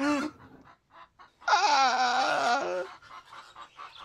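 Cackling bird calls: a short call at the start, then a loud, long call with a wavering pitch from about a second and a half in, followed by softer short clucks.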